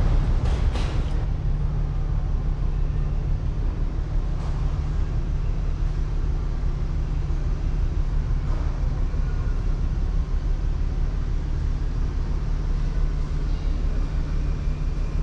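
A large diesel engine running with a steady low rumble that starts abruptly and holds steady.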